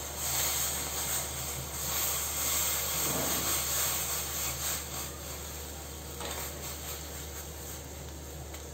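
Warm milk poured in a stream into boiling tea water in a stainless steel saucepan, a steady splashing hiss that eases off after about five seconds.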